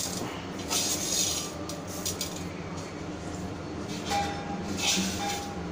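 Dry split lentils rustling and shifting in a stainless steel tumbler, with light clinks of steel vessels. Short hissing rustles come about a second in and twice near the end.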